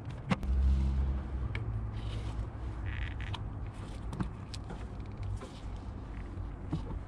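Scattered clicks, a creak and scraping as an old side-post battery cable terminal is worked loose and pulled out from under a lip, over a low rumble.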